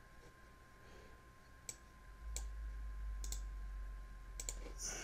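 A handful of sharp clicks from a computer being operated at a desk while a command is entered, some in quick pairs, starting a little under two seconds in, over a faint steady whine.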